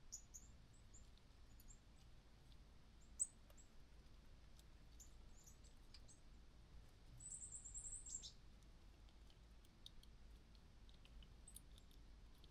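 Faint, scattered high-pitched animal chirps with one short fluttering trill about two-thirds of the way through, over near silence with a few faint clicks and one sharp tick.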